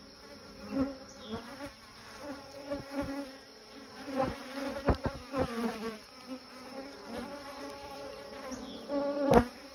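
Honeybees buzzing over an open hive, the hum swelling and fading as bees fly close by. A few short knocks, the loudest one near the end.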